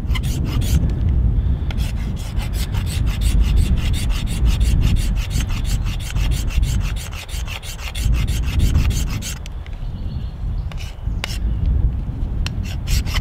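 Ferro rod scraped with a metal striker over fatwood shavings in quick, even strokes, about five a second, to start a fire. About nine and a half seconds in the rapid scraping stops, and a few separate single strikes follow.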